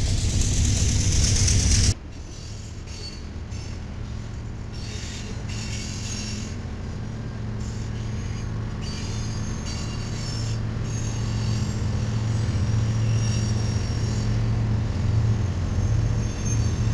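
Loud rushing noise of a passing train, cut off about two seconds in. Then diesel locomotives run with a steady low engine drone, dotted with brief high-pitched metal squeals, and the drone grows louder toward the end.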